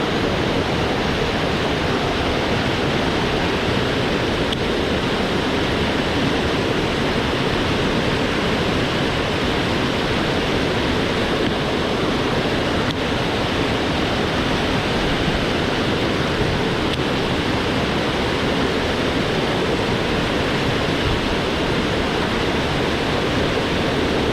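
Rushing water of a swollen mountain stream, a steady, even rush without breaks.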